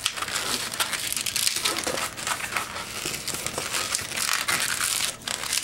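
Inflated gray 260 latex modelling balloon being twisted into pinch twists by hand, the latex rubbing against itself and the fingers in a run of irregular crinkly rubbing noises.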